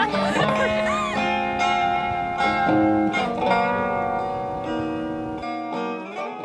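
Background music led by a plucked guitar playing a gentle melody, gradually getting quieter.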